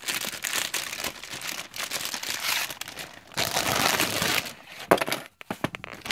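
Thin clear plastic envelope crinkling and rustling as a folded fabric purse organizer is pulled out of it, with a sharp tap about five seconds in followed by a few small ticks.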